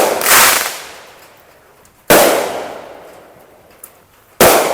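Consumer fireworks going off: three loud, sharp bangs about two seconds apart, each fading away over a second or so.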